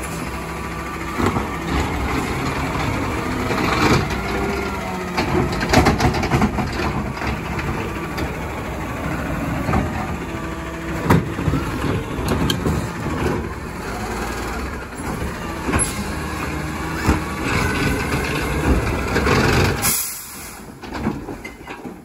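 Autocar refuse truck with a McNeilus ZR automated side-loader body running at the curb, its engine and hydraulics rising and falling in pitch, with repeated metal clanks and knocks. About twenty seconds in comes a short, sharp air-brake hiss.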